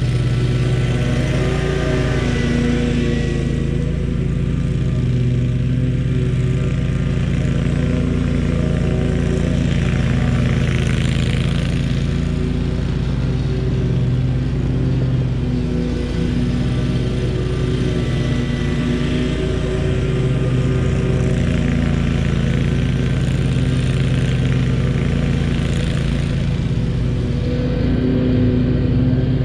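Small engine of lawn-care power equipment running steadily at working speed, with a rushing noise that swells briefly now and then.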